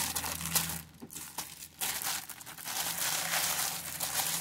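Clear plastic packaging bags crinkling as hands handle the bagged silicone lids, with a short lull about a second in.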